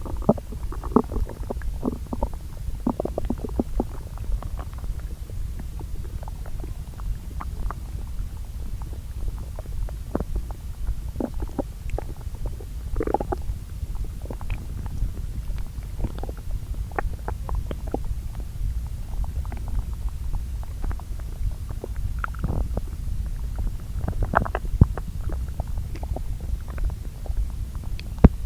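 Human bowel sounds from the lower intestine, recorded close at two spots and layered together, calmly churning as it digests food. A steady low rumble runs underneath, with frequent short gurgles at irregular intervals.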